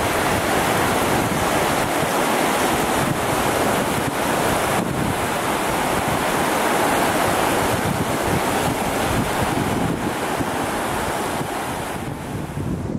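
Sea surf washing on a beach, a steady rush of noise, with wind on the microphone.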